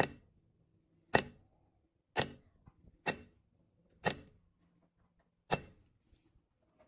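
Hammer striking a hand-held steel punch against a brass medallion to chase a pattern: six sharp metallic taps, roughly one a second, each with a brief ring.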